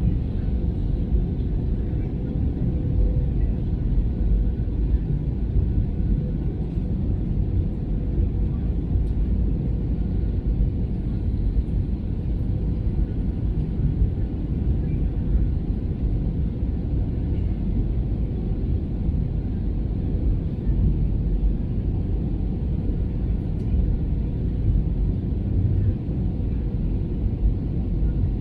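Airbus A320 cabin noise in flight: a steady, even low rumble of engines and airflow, with a faint steady hum.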